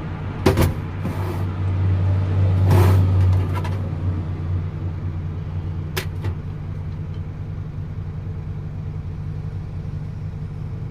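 Low, steady hum of a motor vehicle that swells for a few seconds starting about a second in, with a few sharp clicks of small metal parts being handled.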